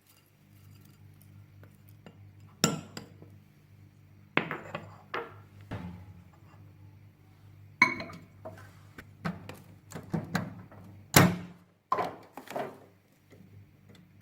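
Dishes and cutlery clinking and knocking, about eight separate strikes spread over several seconds, with a faint steady hum underneath.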